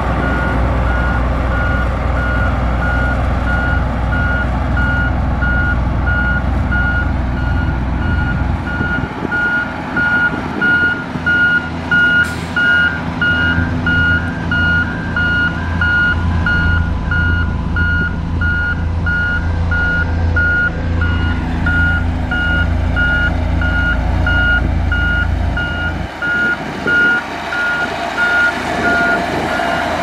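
A heavy earthmoving machine's reversing alarm beeping steadily and evenly over the low rumble of its diesel engine. The engine note shifts about a third of the way in and again near the end.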